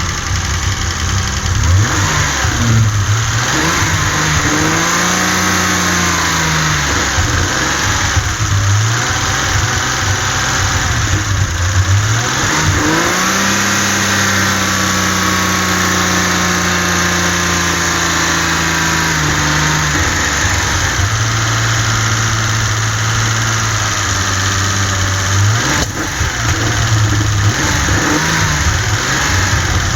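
2.8-litre BMW M30 straight-six of a 1984 Alpina B6, revved up from idle a few times, held at raised revs for several seconds in the middle, then settling to idle and blipped again near the end. The engine has a misfire that the owner has not yet traced.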